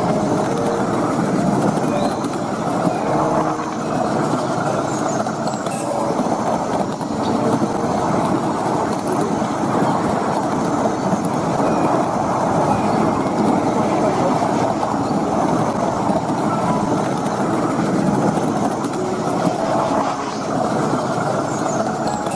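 7¼ in gauge miniature railway train running along the track, heard from the passenger carriage: a steady noise of the wheels running on the rails.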